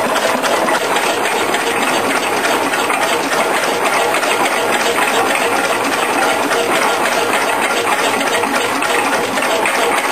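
1910 Hornsby 2 hp hot bulb engine running: a steady, dense mechanical clatter of fast ticks over a hiss.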